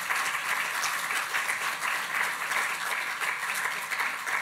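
Audience applauding to welcome a speaker, many hands clapping steadily.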